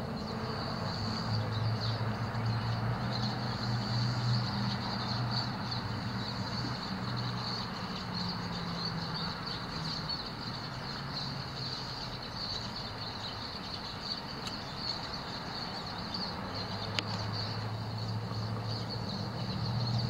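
A flock of finches twittering without a break, with a low steady hum underneath.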